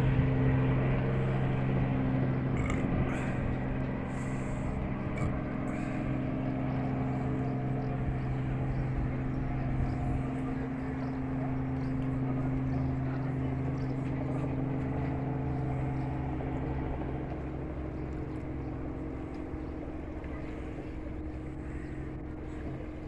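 Steady drone of a light propeller airplane's engine passing overhead, slowly fading.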